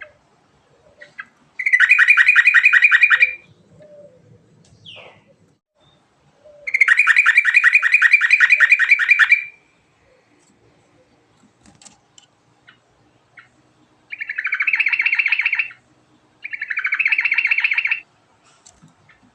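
A yellow-vented bulbul (trucukan) singing long rapid trills, four times, each a fast run of repeated notes lasting about two to three seconds, with short gaps and a few faint notes between them.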